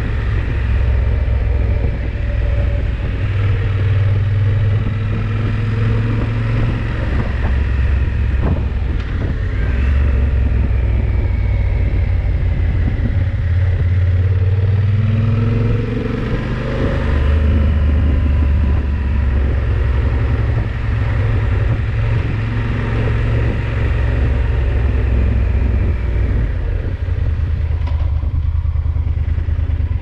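Yamaha XT1200Z Super Ténéré's parallel-twin engine running under way, its note rising and falling every few seconds as the throttle changes.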